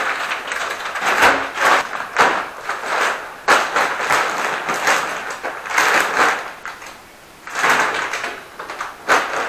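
Large plastic sacks of dry dog food rustling and crinkling as they are carried and set down on the floor, in a string of bursts with a short lull around seven seconds in.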